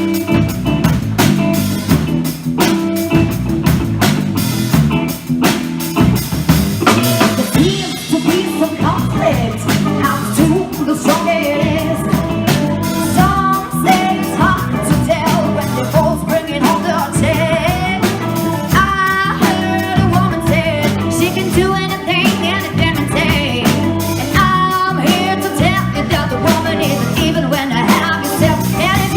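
Band playing a blues-rock number on drum kit and guitar, with a bending melodic lead line coming in partway through.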